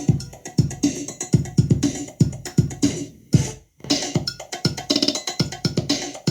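Dance music played through a Multilaser 1000 W portable speaker: an instrumental stretch with a steady drum-machine beat and synth, the beat dropping out for a moment about halfway through.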